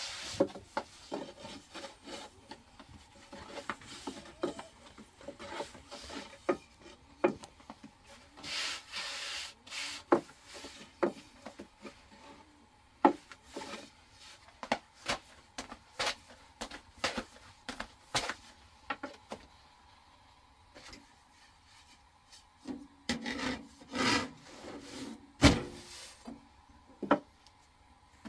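Thin wooden rolling pin rolling out flatbread dough on a round wooden board: rubbing strokes broken by frequent sharp clicks and knocks of the pin against the board.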